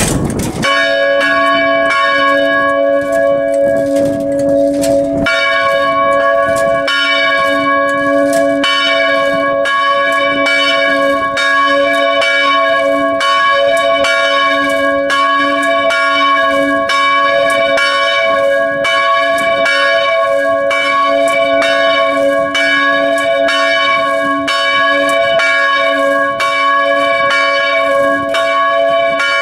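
Swinging bronze church bells ringing, heard close up in the belfry. One bell starts about half a second in, and a second bell joins about five seconds in. The two then strike steadily together in an overlapping peal.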